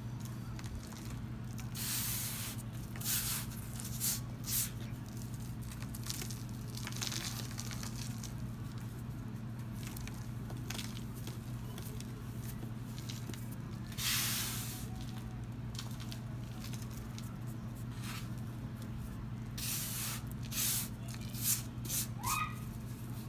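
Hands crushing soft powdery balls and rubbing through loose powder: soft crunching and hissing rustles that come in irregular bursts, over a steady low hum.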